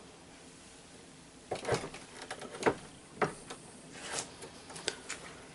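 Hand swaging tool clamped in a vise, its long handle worked to crimp a ferrule onto steel wire rope: from about a second and a half in, a run of irregular sharp metal clicks and knocks.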